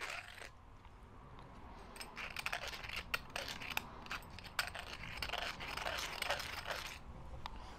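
Hand deburring tool scraping burrs off a tight-fitting part, in short irregular strokes with small clicks, to clean it up for a snug fit.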